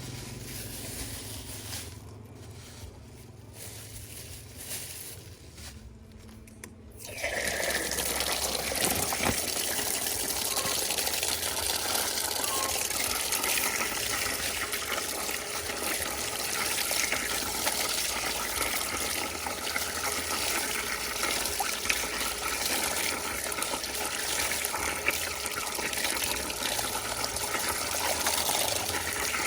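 A quiet low hum, then about seven seconds in water starts running and keeps gushing steadily, as for washing.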